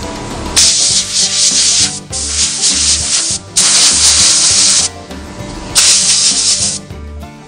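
Compressed air hissing from a blow gun as it blows dust out of a chainsaw air filter from the inside out, in several bursts of about a second each with short pauses between. The filter is being cleaned because a plugged air filter keeps a saw from running properly.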